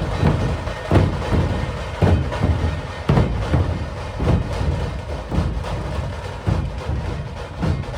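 Maharashtrian dhol tasha drum ensemble playing loud: heavy dhol strokes about once a second over a dense, fast beat.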